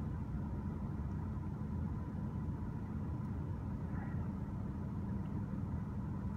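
BMW E90 320i's four-cylinder petrol engine idling steadily at about 800 rpm, heard from inside the cabin as a low, even rumble.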